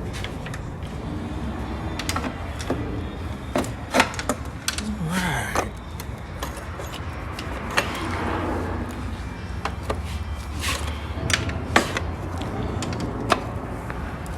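Scattered sharp knocks and clicks of hand tools, a pry bar and mallet, working at an engine's timing chain cover to break it loose, over a steady low hum.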